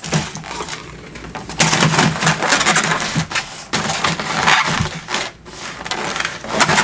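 Foam takeout clamshell boxes creaking and crackling as they are handled, opened and shoved into place, in irregular rough stretches that grow loud about a second and a half in.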